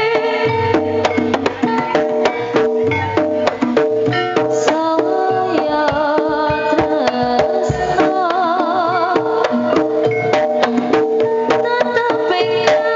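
Live Javanese jaranan music played loud through a sound system: fast, dense kendang drum strokes under sustained, wavering melody notes.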